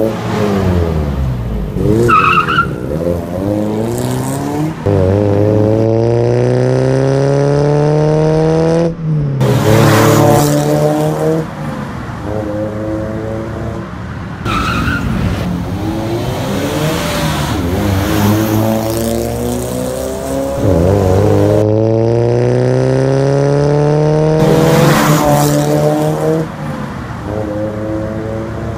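Toyota Innova with an aftermarket cat-back exhaust accelerating hard, its engine note rising steadily in pitch, dropping at a gear change and climbing again, then passing close by with a short rush of noise. The sequence happens twice.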